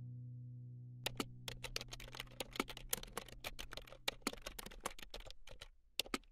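A held music chord fading out, then about a second in a quick, irregular run of light clicks and taps, several a second, that thins out near the end.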